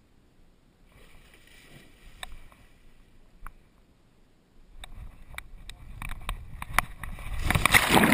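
A dog plunging into a river: water splashing and sloshing builds over the last few seconds and is loudest near the end as the back-mounted action camera goes under. Scattered sharp knocks come through the quieter first half.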